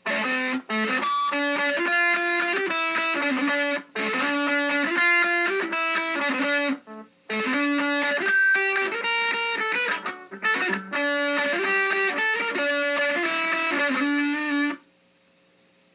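Strat-style electric guitar playing metal riffs through a Line 6 Uber Metal pedal on its metal setting with the distortion at half, into a small 10-watt Fender amp. The riffs come in phrases of a few seconds with brief breaks and stop about a second before the end.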